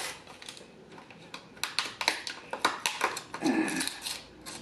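Plastic drink-cup lid clicking and crackling under the fingers as a straw is worked into a lid that has no straw hole.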